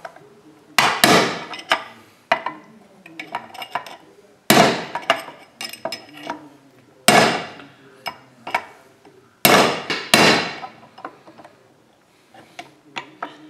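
Hammer blows on a steel punch set against the outer race of a crankshaft bearing, driving the bearing into a Stihl 041 chainsaw's crankcase. About six sharp metallic strikes with brief ringing, spaced one to a few seconds apart, with lighter taps between them.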